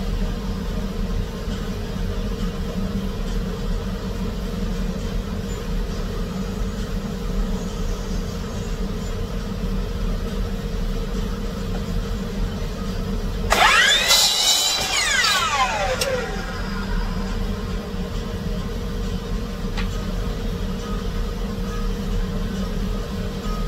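Electric compound miter saw making one short cut through a wooden board, then its blade spinning down with a falling whine that fades over about two seconds. A steady low hum runs underneath throughout.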